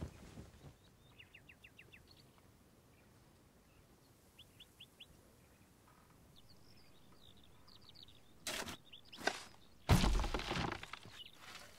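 Small birds chirping faintly in short, quick runs of notes. Near the end come two sharp knocks, then a heavy thud with a rough, noisy rush lasting about a second, the loudest sound here.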